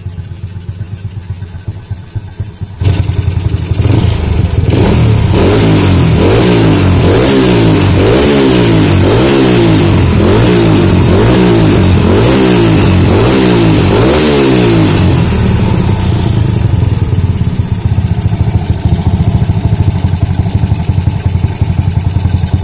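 Modified Honda Grand motorcycle with a swapped-in Yamaha Jupiter Z four-stroke single engine running, getting loud about three seconds in. It is then revved in quick repeated blips, about one a second for some ten seconds, before settling back to a steady, fast-pulsing idle.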